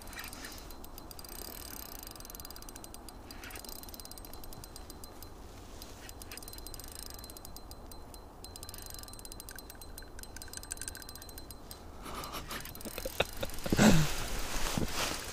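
Spinning reel on a short ice-fishing rod ticking rapidly while a heavy lake trout is played on the line, over a low steady rumble. Near the end come louder handling knocks, the loudest a brief thump.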